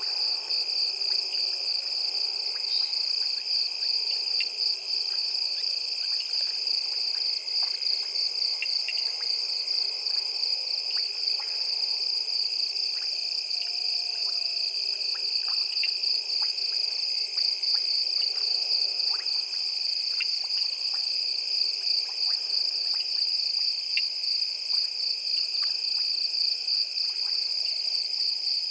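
Steady night chorus of insects such as crickets: a continuous high, finely pulsing trill with a second lower band beneath it. Scattered short clicks and chirps run through it.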